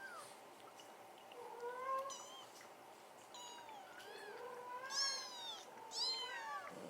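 Several kittens mewing, high thin calls overlapping one another, loudest about two, five and six seconds in.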